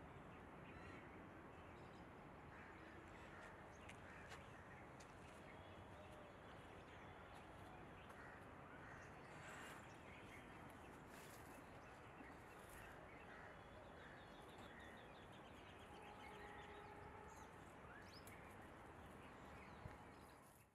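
Near silence: faint outdoor ambience with a low hiss and a few faint, distant bird calls, including a quick run of notes partway through.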